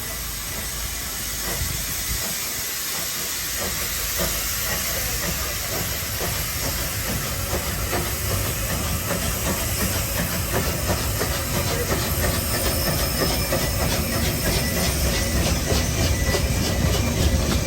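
Narrow-gauge steam locomotive hissing steam and working, growing steadily louder as it draws nearer, with a quick, even beat of exhaust chuffs that becomes clearer in the second half.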